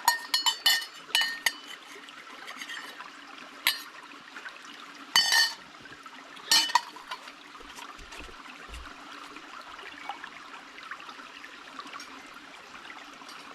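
Dishes being washed by hand: water sloshing and trickling, with pots and utensils clinking against each other in quick succession at first, then now and again.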